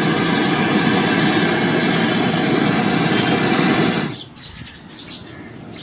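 Handheld canister gas torch hissing steadily, its flame brazing a copper refrigerant pipe joint at a deep freezer's compressor. The flame noise cuts off suddenly about four seconds in.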